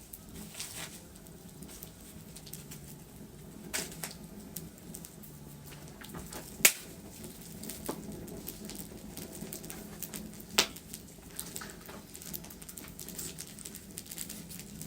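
Wood fire crackling: a steady low hiss with scattered sharp pops and snaps. The two loudest pops come about six and a half and ten and a half seconds in.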